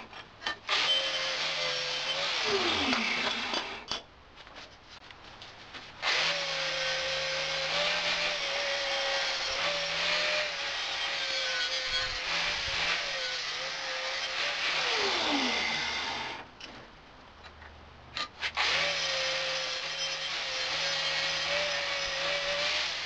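Handheld electric power tool working on steel in three runs, the middle one about ten seconds long, with short pauses between them. Its motor whine stays steady while it cuts, then falls sharply in pitch as the tool winds down.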